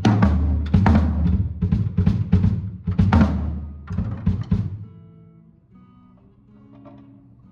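Drum kit played in a sound check: a quick run of hits on the drums and cymbals for the first four and a half seconds, then the playing stops and the kit rings out. Faint, steady low tones are left.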